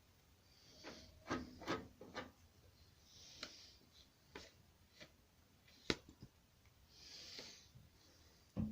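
Quiet scraping and rubbing strokes with scattered light clicks and taps, from hand work on a lawnmower deck. The sharpest tap comes about six seconds in.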